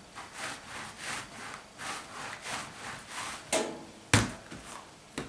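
Soft rhythmic knocking, about two strokes a second, with one sharper knock about four seconds in.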